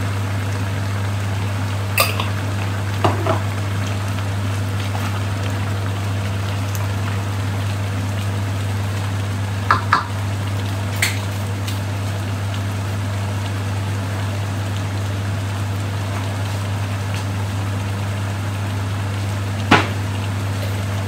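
Chicken and vegetable stew simmering and bubbling in a steel wok. A wooden spatula knocks against the pan a few times, over a steady low hum.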